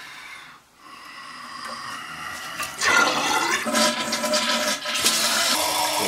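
Toilet flushing: a rush of water that gets loud about three seconds in as the tank empties, with the newly fitted fill valve starting to refill it.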